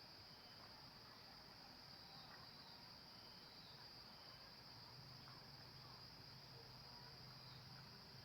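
Faint, steady high-pitched insect trill, otherwise near silence.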